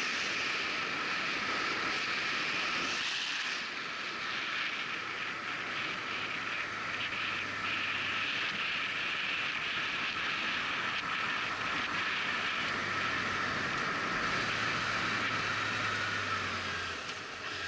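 Steady wind rush over the microphone of a motorcycle's onboard camera while riding, with a faint low engine hum that comes and goes underneath.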